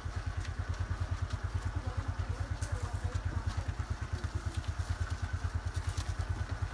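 Motorbike engine idling, a steady low putter of about ten beats a second.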